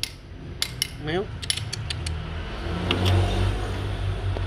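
Metal spoon clinking and scraping against a tin can as wet cat food is scooped out, a quick run of sharp clicks in the first two seconds. A short rising cat meow comes about a second in, and a low rumble swells near the end.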